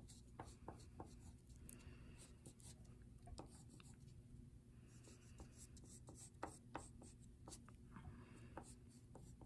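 Faint, irregular short strokes of an orange pastel stick scratching over paper as a second layer of colour is worked in.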